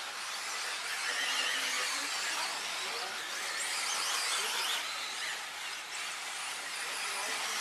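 Several 2WD off-road RC buggies racing together, a dense high-pitched motor whine that keeps rising and falling as the cars accelerate and brake.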